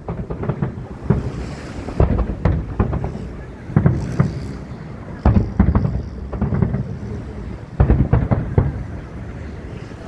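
Aerial fireworks shells bursting in an irregular string of deep booms, sometimes two or three close together, each trailing off in a rumbling echo.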